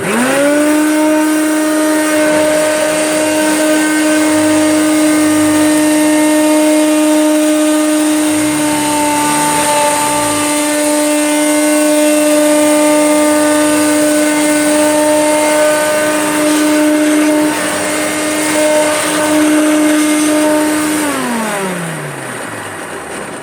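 Hoover Turbomaster vacuum cleaner switched on, its motor quickly spinning up to a loud, steady whine while it sucks up a pile of dog hair, then switched off about 21 seconds in and winding down. The owner finds it very noisy, in a way she thinks suggests it needs looking at.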